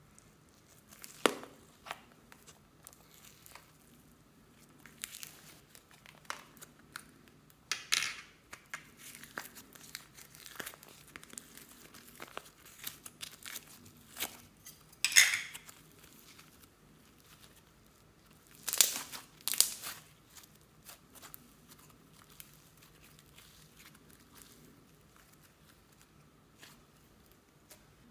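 Pink store-bought slime being squeezed and pulled out of a plastic carrot-shaped container by hand: sticky crackling, popping and crinkling in scattered short bursts, the loudest about 8, 15 and 19 seconds in.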